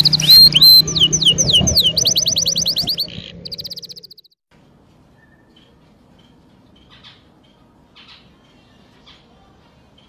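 Canary song: fast trills and quickly repeated sweeping whistled notes, fading out about four seconds in. After that there are only a few faint short chirps.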